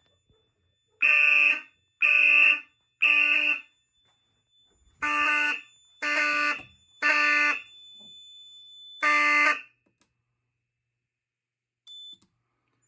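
Fire alarm horns, a Pyrotronics 7002T among them, sounding in a temporal-three code: three short buzzy blasts, a pause, three more, then one more blast before the alarm stops about ten seconds in. The 7002T sounds harsh because it runs on unfiltered, full-wave rectified power from the panel. A brief high electronic beep comes near the end.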